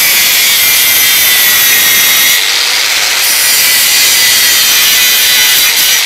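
Electric angle grinder with a cutting disc running and cutting through the fins and tubes of an aluminium air-conditioner cooling coil: a loud, steady, high-pitched grinding noise with a faint whine in it.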